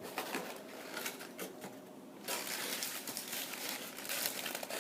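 Crinkling and rustling of takeout food packaging being handled, a few scattered crackles at first, then a dense run of crackling from about two seconds in.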